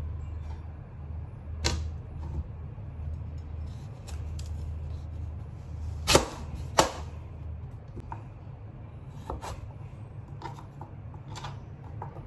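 Scattered sharp clicks and knocks over a low steady hum, with two louder knocks about six and seven seconds in; the hum fades out soon after.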